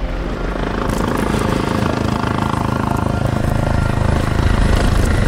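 Airbus H145M helicopter running close by: the twin-turbine whine and the main rotor's steady beat, slightly louder near the end.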